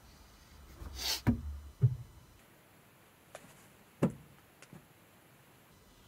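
A few dull knocks or thuds on wood: two close together just over a second in, and a third about four seconds in, with faint clicks between them.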